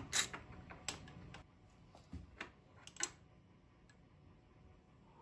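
Ratchet wrench with a 13/16 socket clicking as it unscrews the top cap of an RST Killah fork tube. There is a quick run of sharp clicks in the first second and a half and a few fainter ticks around two to three seconds in, then it stops.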